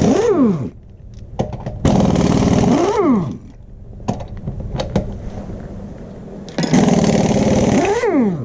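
Impact wrench hammering three times in short bursts, spinning loosened nuts off a Jeep wheel; each burst ends with the motor's pitch rising as the nut frees up, then falling as the trigger is released.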